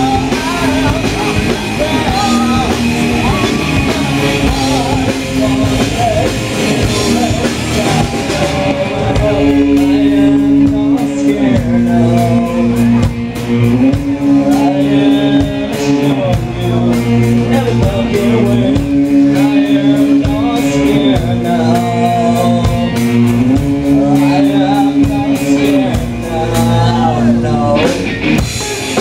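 Live rock band playing loud: drum kit, guitar and a singer. From about nine seconds in a low riff repeats, stepping between two notes every couple of seconds over a steady drumbeat.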